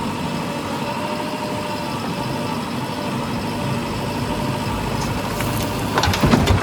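JCB 3DX backhoe loader's diesel engine running steadily during trolley loading. About six seconds in comes a short burst of sharp knocks and clatter, louder than the engine.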